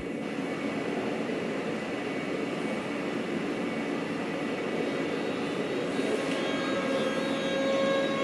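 Electric S-Bahn multiple-unit train approaching: a steady rushing noise that grows slowly louder, with high whining tones that strengthen near the end.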